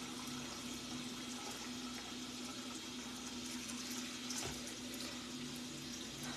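Steady background hiss with a constant low hum, as in room tone from a phone microphone; a faint click about four and a half seconds in.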